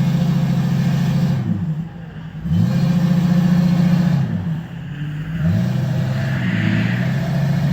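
Ford Excursion's 6.8-litre V10 through a Flowmaster exhaust, revved up and held for a second or two, then dropped back, three times over. The lifted truck is stuck in a hole in the snow and is being powered to get out.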